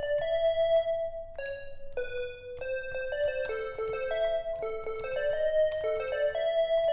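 A short melody of quick, bright keyboard-like notes, played over and over with small changes. The sound thins briefly a little over a second in before the melody picks up again.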